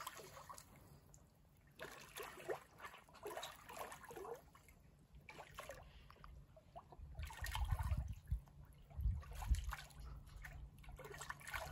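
Faint pool water lapping and trickling with small splashes as a swimmer floats on her back holding a foam noodle; a low rumbling comes and goes in the second half.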